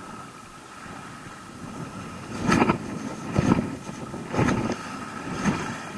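Abu Garcia 5500C baitcasting reel being cranked in a slow retrieve, starting about two seconds in, with a regular pulse about once a second.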